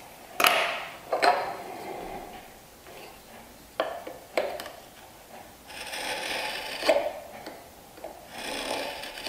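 A few sharp knocks of wooden boards being set against each other on the workbench, then a marking knife scraping across the wood in two strokes as it scribes the tenon's baseline.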